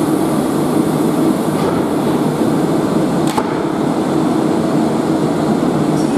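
Class 360 Desiro electric train standing at the platform, its onboard equipment humming steadily as its sliding doors close. A single short knock about three seconds in, as the doors shut.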